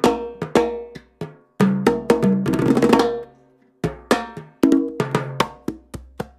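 Conga drums and steel timbales played together: ringing open conga tones mixed with stick strikes on the timbales and a plastic block, in quick runs broken by two short pauses.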